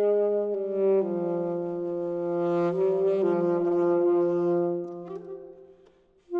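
Solo alto saxophone playing long held notes that step to a new pitch every second or so. The sound fades away to near silence near the end, and a loud new note comes in just as it closes.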